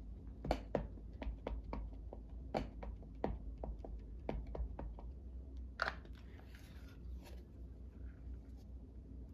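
Irregular light taps and clicks of art supplies being handled and set down on a desk, with a sharper click about six seconds in and a brief soft rustle after it.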